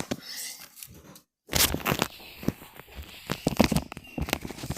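Crinkly rustling and scattered sharp clicks of small objects being handled. The sound cuts out completely for a moment about a second in.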